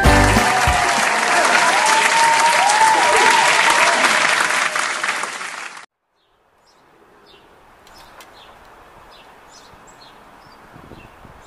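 Loud applause with a few brief rising-and-falling whistle-like tones. It cuts off suddenly about six seconds in. After a moment of silence there is faint outdoor ambience with scattered short, high bird chirps.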